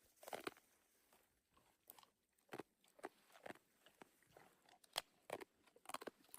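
Wild boar chewing a nut: irregular sharp crunches and bites, with short pauses between them.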